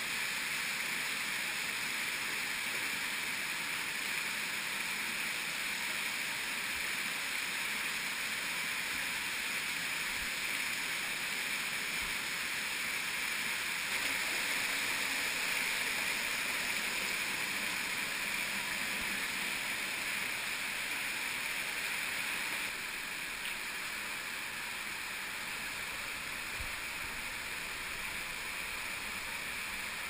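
Underground cave stream rushing down a rocky cascade: a steady, even hiss of falling and tumbling water, a little quieter about three-quarters of the way through.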